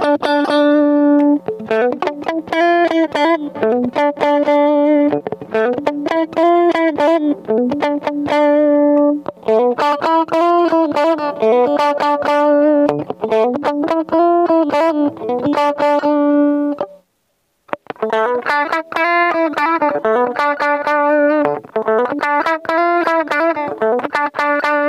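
JCraft S1H Strat-style electric guitar playing a picked lead line with repeated string bends, stopping briefly about 17 seconds in before the phrase resumes.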